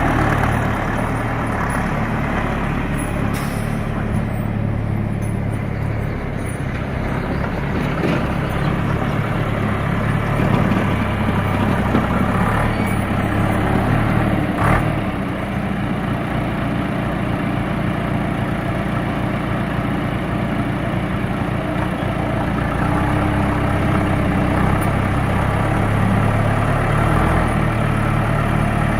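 John Deere 310A loader backhoe's diesel engine idling steadily, with a couple of brief clicks along the way.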